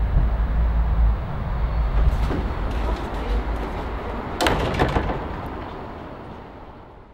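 Low steady rumble of outdoor ambience with a few light knocks, then a loud door bang about four and a half seconds in; the whole sound fades out near the end.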